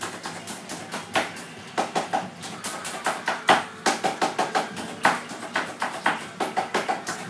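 Music with quick, clicking percussion: many short taps and clicks, a few a second, with brief pitched notes mixed in.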